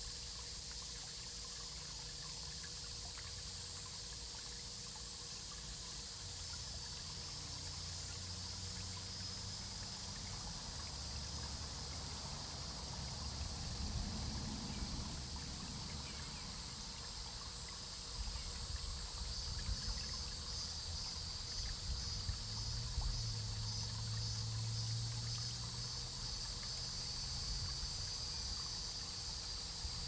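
A steady, high-pitched insect chorus. About two-thirds of the way through it turns into an even pulsing, roughly three beats every two seconds, over a low rumble.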